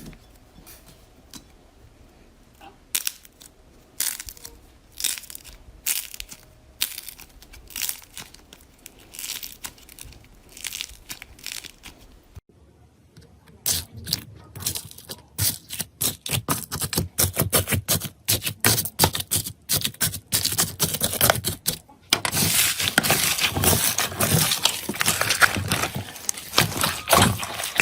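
Slime being squeezed and pressed by hand, making sticky popping clicks. The pops are sparse and single at first; after a cut about halfway through they turn into fast crackling that becomes a near-continuous crackle in the last few seconds.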